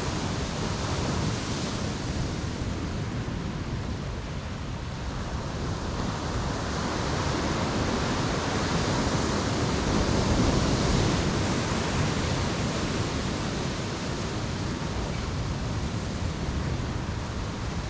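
Ocean waves breaking on a beach: a continuous wash of surf that swells about ten seconds in and then eases off.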